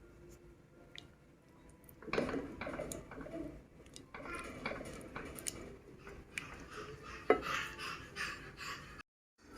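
Dishes and cutlery clattering, with irregular clinks and rustles and one sharp knock about seven seconds in. The sound drops out completely for a moment near the end.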